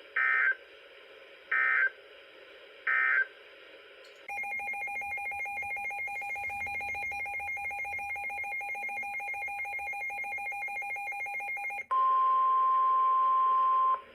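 Emergency Alert System header and alert tones on NOAA Weather Radio: three short data bursts of a SAME header about 1.4 seconds apart, then a steady two-tone attention signal for about seven and a half seconds, then a single steady warning tone for about two seconds that signals a warning message is about to follow.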